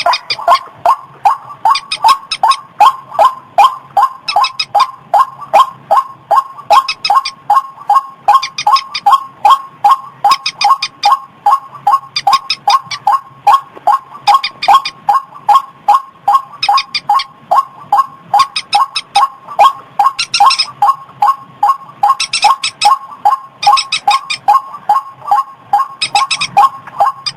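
White-breasted waterhen call played as a bird lure: a loud, monotonous string of short pitched notes, about two a second, with higher notes joining in short bursts every second or two.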